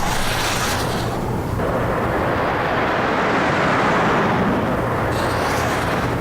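A loud, continuous rushing rumble from a cartoon sound-effects track. It changes character about a second and a half in and again near the end.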